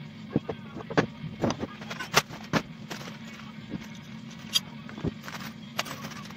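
Hands handling small metal hardware on a wooden bench: a square cooling fan and a flat metal bar knocked about, then loose steel bolts, nuts and washers clinking as they are picked through. Scattered sharp clicks and clacks over a steady low hum.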